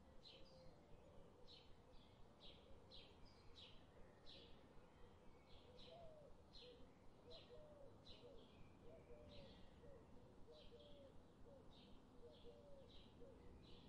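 Faint birds chirping: short high chirps repeating about twice a second, with softer, lower wavering calls beneath.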